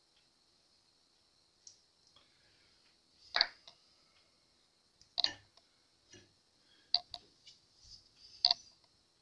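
Sharp clicks and light knocks of small tools and objects being handled on a wooden workbench. There are about five, a second or two apart, with a quick double click about two-thirds of the way in.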